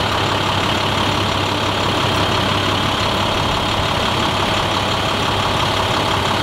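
Fire-rescue ambulance truck's engine idling steadily.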